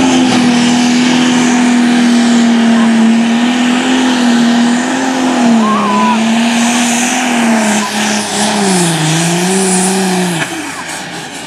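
Diesel engine of a modified pulling tractor running flat out under full load as it drags the weight sled. The engine note holds steady, then sags and wavers lower as the sled bogs it down, and cuts off suddenly about ten seconds in as the pull ends.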